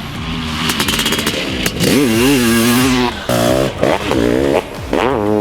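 1995 Honda CR500 single-cylinder two-stroke engine on the motocross track, revving up hard, holding, then chopping the throttle, about three times. There is a noisy hiss in the first second or two.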